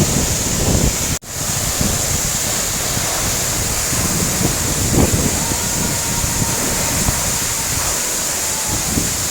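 Waterfall: a loud, steady rush of falling water, with wind buffeting the microphone. The sound cuts out for an instant about a second in.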